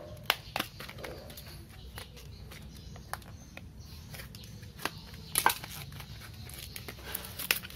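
Plastic blister pack of AA batteries being handled and cut open with a knife: scattered sharp crackles and clicks of stiff plastic, the loudest cluster about five and a half seconds in, over a low steady hum.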